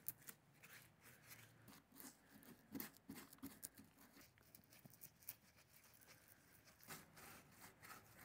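Near silence with faint, scattered soft scuffs and small ticks: a brush dabbing and working thick rust-protection gel onto a rusty steel tractor fender and its bracket.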